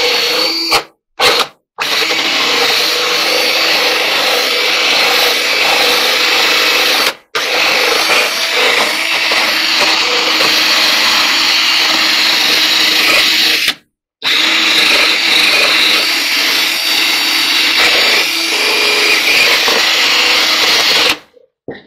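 Cordless drill running at speed with a wheel attachment scrubbing old, gummy door-seal sealer off a clothes dryer's metal bulkhead, with a steady motor whine. The trigger is let off for short moments about a second in, around a third of the way and halfway through, and the drill stops near the end.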